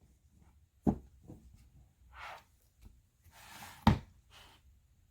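Handling noise: two dull knocks, about a second in and about four seconds in, with brief faint rustles between them.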